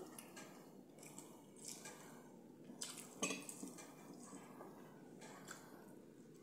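Faint eating sounds: soft clicks and taps of food being picked by hand off a ceramic plate, with a sharper tap about three seconds in, and quiet chewing.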